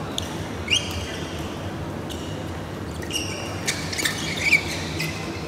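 Badminton rally on a synthetic court: sharp racket strikes on the shuttlecock and the squeak of court shoes on the mat, about a second in and again around four seconds, over the low echoing hum of a busy sports hall.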